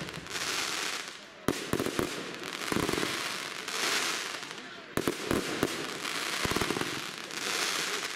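Aerial fireworks display: sharp shell bursts about one and a half and five seconds in, each followed by a quick string of smaller reports, with swells of fizzing crackle from crackling stars in between.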